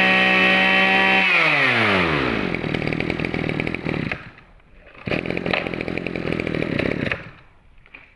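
Small two-stroke brush cutter engine (a 25cc Tanaka) running steadily, then switched off about a second in, its pitch falling as it winds down. It is followed by two stretches of rapid rattling, each lasting a couple of seconds.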